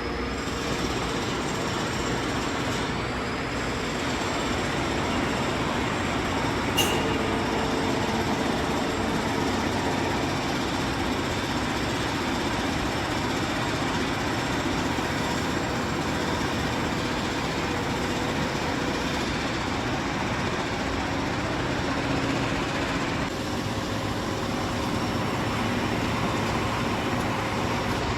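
Rafamet UBC 150 CNC wheel lathe running: a steady mechanical hum and hiss with faint constant tones, and a single sharp click about seven seconds in.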